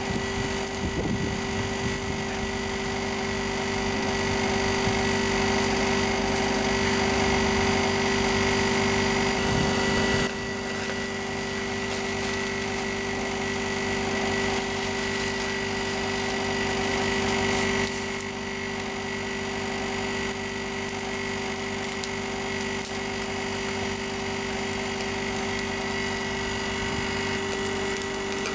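A steady mechanical hum holding several fixed tones over an even rushing noise; it shifts abruptly about ten seconds in and again near eighteen seconds.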